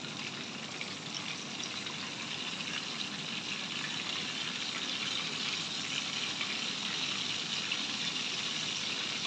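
Chicken tikka leg pieces sizzling as they shallow-fry in hot oil in a frying pan: a steady hiss that grows a little louder.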